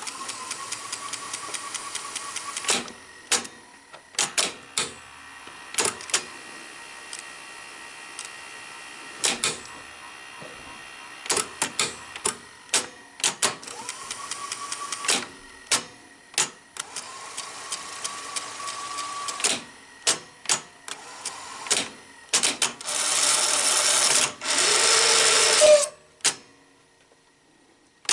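Sony SL-5000 Betamax VCR's tape transport being worked by hand: repeated sharp clicks and clunks of its controls and mechanism, and a motor whine that rises in pitch and then holds, several times. A louder rushing whir runs for about three seconds near the end.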